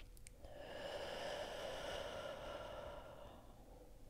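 A woman's slow, deep audible breath, a soft breathy rush lasting about three seconds.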